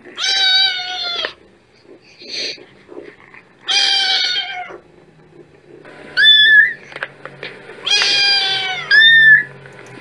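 Kittens meowing: three long, drawn-out meows about a second each, and between them two shorter, higher-pitched mews, which are the loudest calls.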